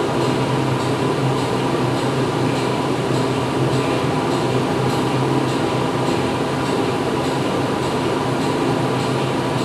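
Steady hum and rushing noise of a running machine, played as white noise for background sound, with a faint regular tick about twice a second.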